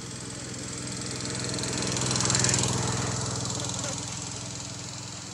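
A motor vehicle passing by: its noise rises to a peak about halfway and then fades, over a steady low engine hum.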